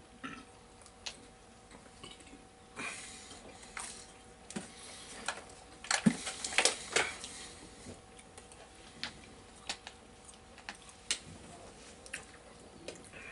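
Quiet scattered clicks, taps and rustles of people eating pizza from an open cardboard pizza box and drinking from a plastic water bottle, with a busier cluster of clicks about halfway through.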